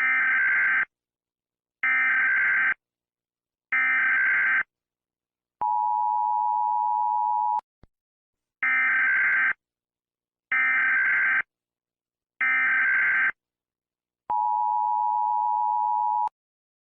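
Emergency Alert System signalling: three short, buzzy data bursts about a second apart, then a steady two-note attention tone for about two seconds, then the same three bursts and tone again.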